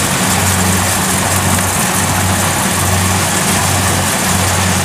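Farm machinery engine running steadily at working speed, a low drone that swells and eases about once a second, with an even hiss above it.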